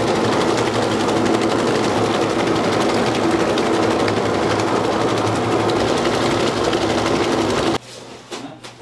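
Automatic fish cake machine running with a steady hum and a fast, even mechanical rattle; the sound cuts off suddenly near the end.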